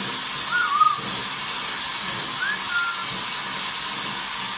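Shower spray running steadily with a hiss, and a blue-and-gold macaw giving two short whistle-like calls, one under a second in and one about two and a half seconds in.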